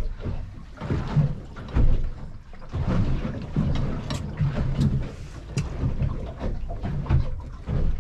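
Wind and water noise aboard an anchored fishing boat: a low, irregular rumbling that swells and fades, with a few faint clicks around the middle.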